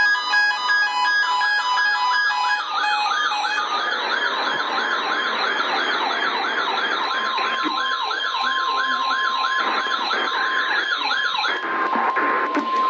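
Emergency alert broadcast tones. Rapid electronic beeps hop between pitches, then give way to a siren-like warble at about three to four sweeps a second that stops about 11 seconds in. A steady single-pitch tone joins about halfway and holds on.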